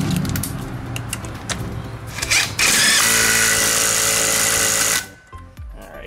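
Cordless DeWalt impact driver running a fastener down on a VW Beetle's rear brake hub. It comes in bursts, the longest in the second half, and cuts off suddenly about a second before the end.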